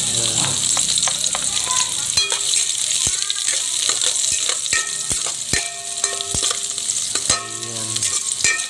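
Sliced red onions sizzling in hot oil in an aluminium pot as they are sautéed, a steady hiss. From about three seconds in, a metal utensil stirring them strikes the pot about ten times, each clink ringing briefly.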